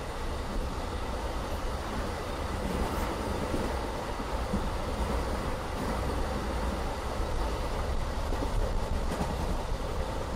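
Running noise heard inside a BLS passenger coach: a steady rumble of wheels on rail with a couple of faint clicks.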